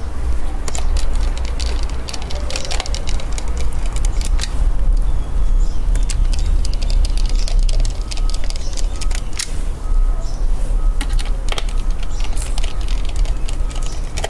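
Hands handling and refitting plastic laptop parts: a rapid, irregular run of clicks, taps and small plastic knocks, over a steady low rumble.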